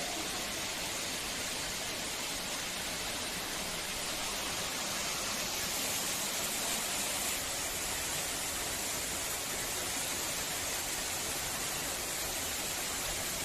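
Rani Duduma waterfall: steady rushing of falling water, an even hiss with no change.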